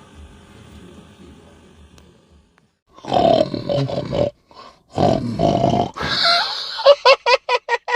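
A sleeping person snoring with a harsh snorting noise: two long, rough snores of about a second each, the first about three seconds in and the second about five seconds in. A quick run of short, evenly spaced pitched sounds follows near the end.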